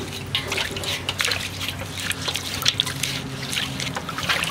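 Water splashing and dribbling in a metal basin as hands scrub snakes with a cloth: irregular small splashes and drips.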